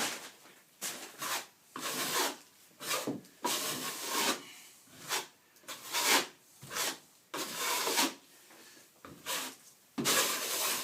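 Plasterer's trowel scraping and rubbing over setting plaster in repeated irregular strokes, one or two a second, polishing the patched surface to a smooth finish.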